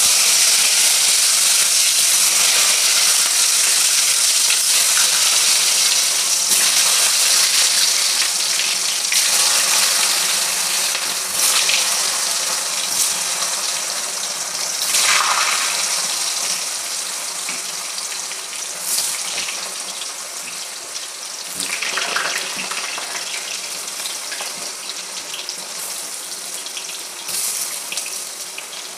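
Boiled, peeled potatoes deep-frying in hot oil in a steel kadai: a loud sizzle that starts abruptly as they go in and slowly dies down, with a few sharp pops.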